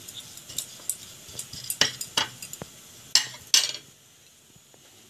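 Metal spoon scraping and clinking against a ceramic plate while mixing grated garlic and ground spices into a paste. The strokes come in uneven bunches, loudest about two seconds in and again past the three-second mark, and stop at about four seconds.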